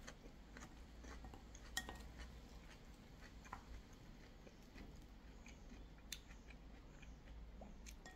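Faint eating sounds: a few light, scattered clicks of utensils against a dish, with quiet chewing.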